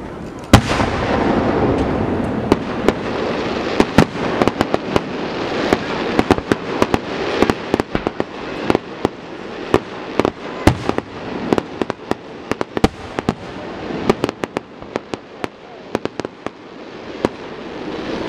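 Aerial fireworks going off: a loud bang about half a second in, then a dense run of sharp bangs and crackles throughout, over a rumble of echoing blasts.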